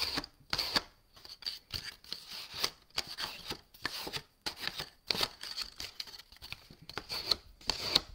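Sheet of card stock rustling and crackling in irregular strokes as it is handled, rubbed and bent to soften the paper into a curved shape.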